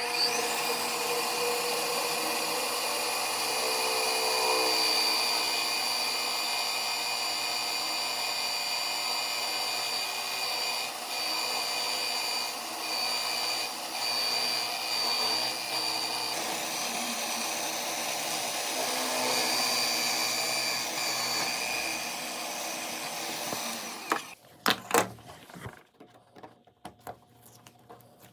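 An electric power tool's motor running steadily with a high-pitched whine, then switching off about 24 seconds in, followed by a few sharp knocks.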